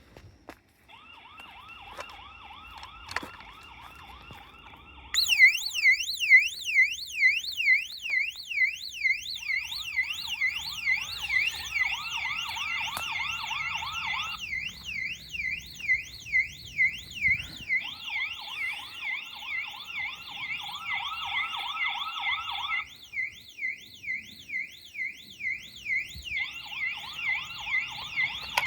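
Two electronic security alarms sounding at once, a solar-powered alarm unit and a security camera's built-in siren. A piercing siren sweeping rapidly up and down, about three times a second, starts about five seconds in and keeps going. A second, warbling alarm sounds in bursts of about five seconds with short gaps between.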